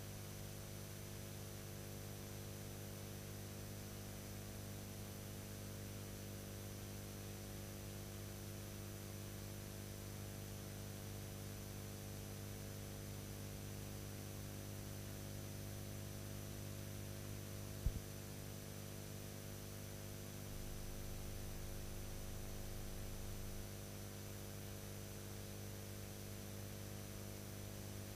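Steady electrical mains hum with hiss and no programme sound, the background noise of an old video-tape transfer, broken by a single sharp click a little past the middle.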